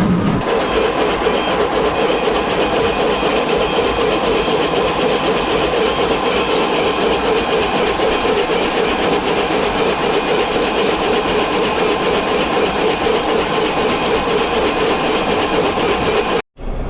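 Tractor pulling a Massey Ferguson small square baler, engine and baler mechanism running steadily while baling straw. The sound cuts off abruptly near the end.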